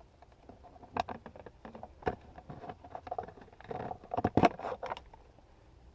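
Scattered clicks, scrapes and knocks of a screw being undone and the plastic dead-pedal (footrest) trim being worked loose in a car footwell, with a quick cluster of louder knocks about four and a half seconds in.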